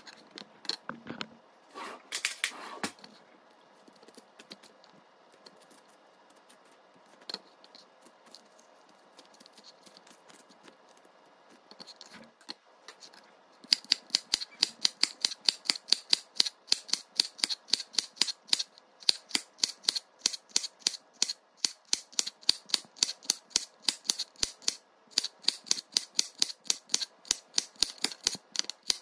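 Chef's knife slicing bitter melon (ampalaya) on a plastic cutting board. After a few scattered handling sounds, a quick, even run of crisp knife taps on the board begins about halfway in, about four a second, with a couple of brief pauses.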